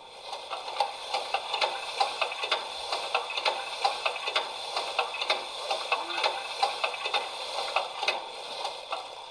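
Sampled sound of a fast-working steam locomotive feedwater pump, played by the model's ESU LokSound 5 XL sound decoder through its speaker. It is a steady rhythmic pumping beat, about two and a half strokes a second.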